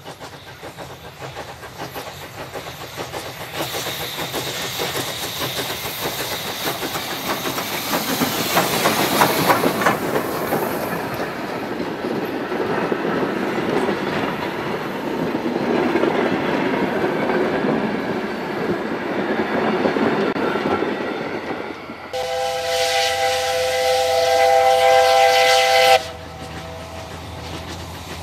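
DSB class F steam tank locomotive passing with its train, steam hissing, then the coaches' wheels clattering over the rail joints as they go by. About three-quarters of the way in, a steam whistle blows one steady blast of about four seconds and cuts off sharply.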